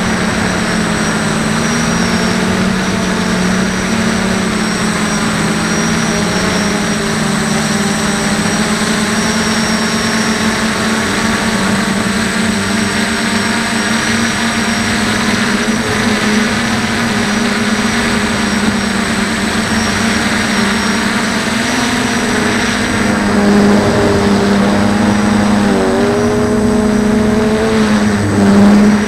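DJI F450 quadcopter's electric motors and propellers buzzing steadily, heard from the camera on the airframe; the pitch shifts with the throttle, with a dip and rise late on and a brief louder swell near the end.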